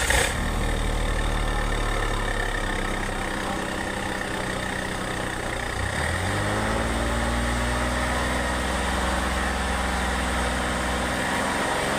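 Vehicle engine idling through an aftermarket 'ngorok' exhaust, a deep, snoring-like rumble, just after being started. The idle holds steady, then its pitch rises slightly about halfway through.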